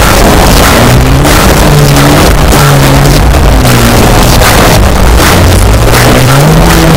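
Brutal metal music, loud and dense: a heavily distorted, low-tuned guitar riff stepping between low notes, with pounding drums.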